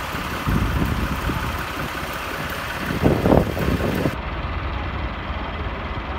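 Farm tractor's diesel engine running under load, trying to pull a trailer loaded with bricks with its rear wheels dug into the dirt. It swells louder about half a second in and again about three seconds in.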